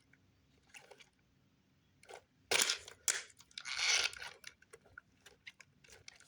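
Hands working on a disassembled RC car's plastic parts: a cluster of crunchy scrapes and clacks about two and a half to four seconds in, then scattered small clicks.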